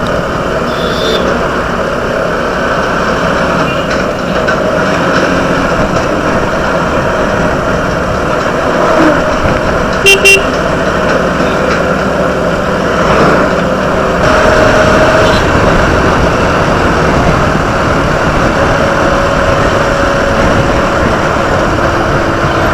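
Motorcycle on the move: engine and steady road and wind noise on the rider's microphone, with a short vehicle horn toot about ten seconds in.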